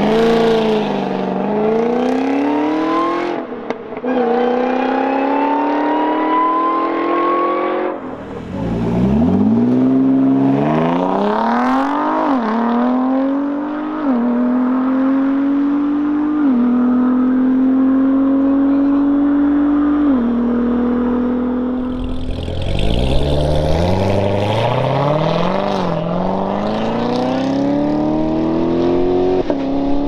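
Sports car engines accelerating hard through the gears: the engine note climbs and drops back at each upshift. There are three runs, with a break to a new one about eight seconds in and again about 22 seconds in. The first run is a Ford GT's supercharged V8 pulling away.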